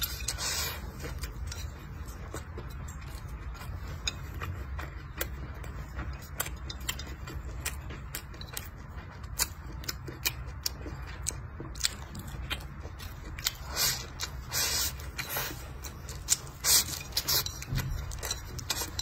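Close-up eating sounds: chewing pork belly and rice, with many short clicks and scrapes of chopsticks against a glazed ceramic plate, a few louder near the end as the plate is swept clean. A low steady hum runs underneath.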